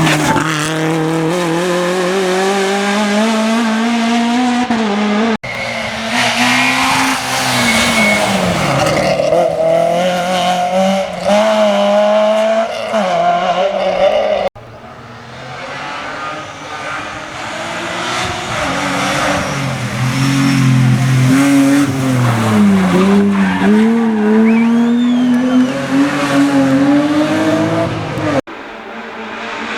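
Rally car engines revving hard, pitch climbing and dropping again and again through gear changes, with some tyre squeal. The sound breaks off abruptly three times as it switches from one car to another.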